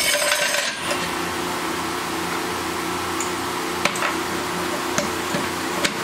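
Hydraulic floor jack being released and pulled away: a short rush of noise in the first second, then a few sharp metallic clicks spaced about a second apart, over a steady background hum.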